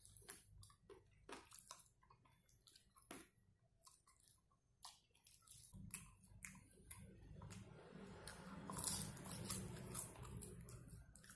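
A person chewing fried pepper chicken close to the microphone: scattered wet mouth clicks and smacks, turning into steadier, louder chewing about halfway through.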